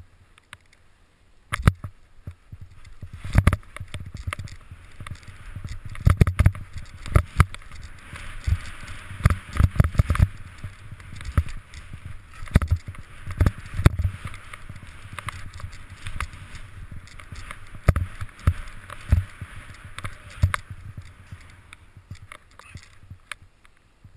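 Skis running through fresh powder snow: a steady hiss with irregular knocks, thumps and low rumble from the turns. It starts about a second and a half in and dies away near the end.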